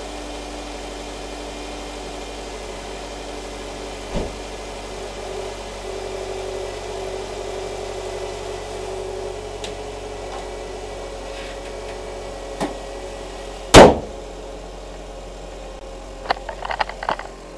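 2008 Subaru Forester's flat-four boxer engine idling steadily after a cold start. About 14 s in, a single loud bang as the hood is slammed shut, and near the end a few light clicks.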